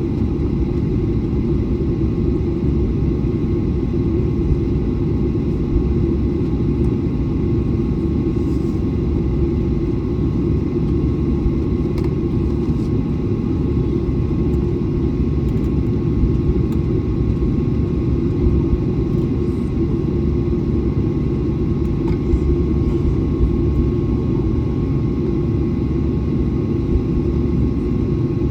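Airliner taxiing: a steady low rumble with a thin, steady whine above it, unchanging throughout.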